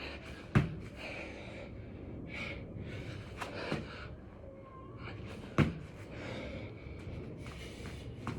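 A person breathing hard while doing six-count burpees, with two sharp thuds about five seconds apart as the body drops to the floor.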